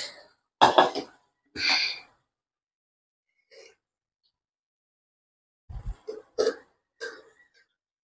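A person coughing and clearing their throat in short bursts: three near the start, then another cluster about six seconds in.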